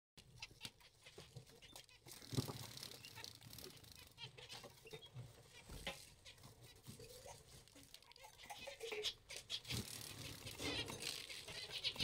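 Zebra finches in a cage: many quick light taps and patter from feet and beaks on newspaper and dishes, with scattered short high chirps.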